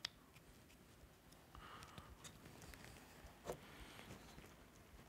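Near silence with faint handling of wooden pieces: a light click at the start, soft rubbing about a second and a half in, and another tap about three and a half seconds in, as mitred walnut leg pieces are fitted together on their domino tenons.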